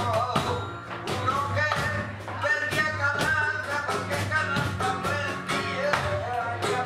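Live flamenco music: a Spanish guitar playing with a voice singing over it, cut through by sharp hand-claps (palmas) and a dancer's heel-stamping on a wooden stage floor.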